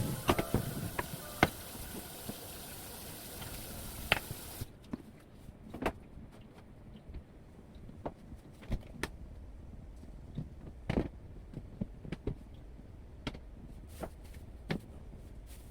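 Scattered light knocks and clicks of household items being handled and set down, over a steady hiss that cuts off suddenly a little over four seconds in.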